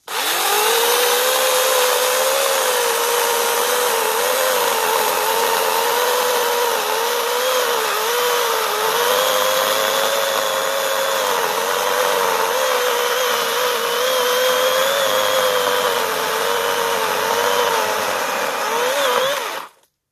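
Battery chainsaw's electric motor whining under load as the chain cuts through a fallen log, the pitch dipping and recovering as the chain bites. It stops near the end.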